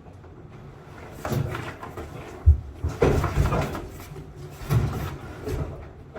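Irregular knocks, thumps and clatter from a large old air-conditioner unit being handled and shifted during removal, about half a dozen hits with the loudest cluster near the middle.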